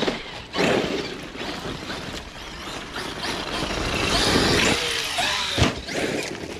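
Traxxas X-Maxx RC monster truck driving on a gravel dirt lot: its electric motor whines up and down with the throttle while the tyres crunch and throw gravel. A sharp knock comes a little after five and a half seconds in.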